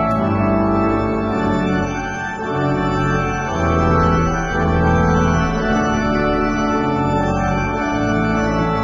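Organ playing sustained chords that move slowly from one to the next.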